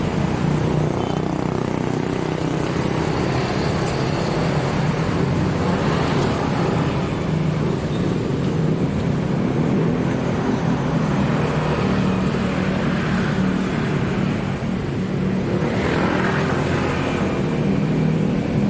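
Road traffic: a steady hum of vehicle engines, with vehicles passing about six seconds in and again near the end.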